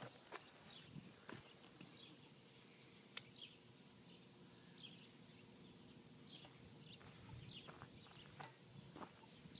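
Near silence outdoors, with faint, scattered short bird chirps and a few light clicks.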